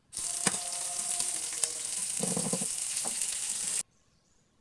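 Tuna pieces sizzling as they fry in oil in a black wok, with a metal spatula clicking and scraping against the pan as they are turned. The sizzle starts suddenly and cuts off suddenly.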